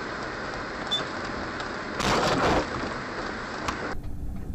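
Steady rushing road and wind noise of a moving car as picked up by a dashcam, with a louder surge of rushing noise about two seconds in that lasts about half a second.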